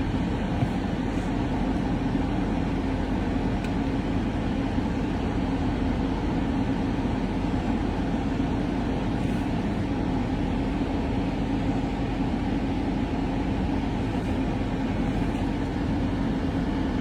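Steady low rumble and hiss of a vehicle, as heard from inside a car, unchanging throughout.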